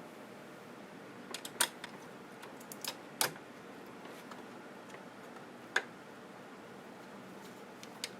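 A few light, sharp clicks and taps of small plastic and metal parts being handled and fitted inside a CD/DVD changer mechanism. They come in a cluster about a second and a half in, two more around three seconds, and a single one near six seconds, over a low steady hiss.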